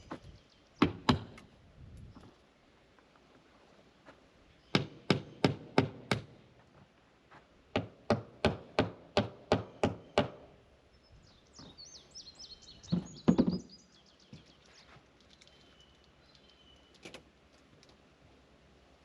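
Hammer blows on wood in quick runs: two strikes, then a run of six at about four a second, then about eight more, then a final pair. Faint bird chirps between the last strikes.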